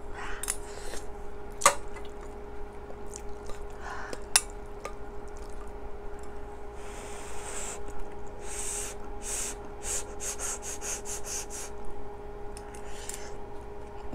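Close-miked eating of kimchi stew: a metal spoon clinks twice against the bowl, then a run of short breathy mouth sounds from chewing, sipping and quick breaths fills the second half. A steady low hum runs underneath.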